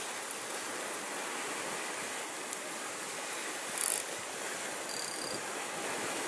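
Steady wash of surf on the shore with some wind, and a short brighter hiss about four seconds in.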